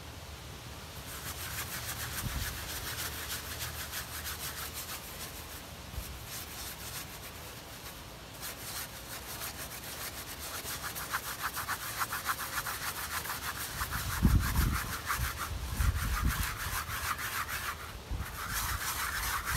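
A stiff flat paintbrush scrubbing varnish back and forth over an oil painting: a dry rasping brush noise of quick repeated strokes, starting about a second in. A few low thumps come about two-thirds of the way through.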